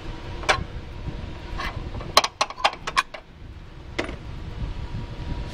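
Sharp metallic clicks and clinks of bolts and hand tools being handled at a car's transmission mount, scattered singly with a quick cluster of several in the middle, over a steady low rumble.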